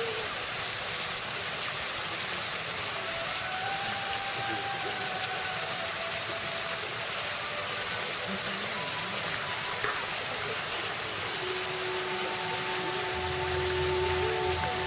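Fountain water jets spraying and splashing back into their basins: a steady rush of falling water, with faint held tones over it.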